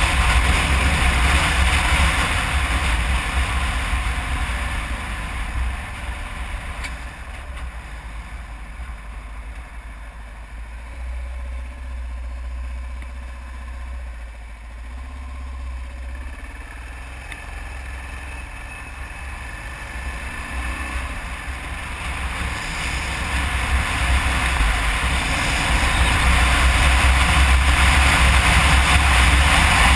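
Kawasaki KLR 650's single-cylinder engine and wind rush at road speed. The sound drops through the middle as the bike slows for an intersection, then builds again as it speeds back up.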